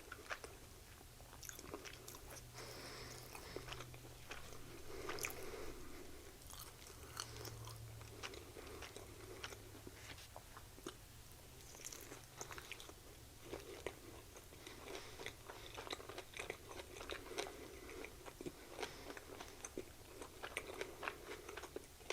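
Close-miked chewing and biting of a chicken sandwich, with many small, soft mouth clicks.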